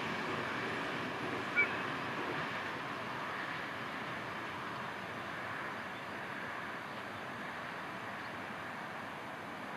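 A freight train running away along the track, its rumble fading slowly into a steady distant hiss. A brief high chirp about a second and a half in.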